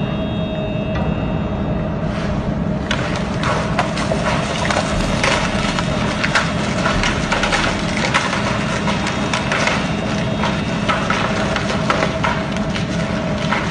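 A steady engine drone, with rock cracking and crunching again and again from about three seconds in.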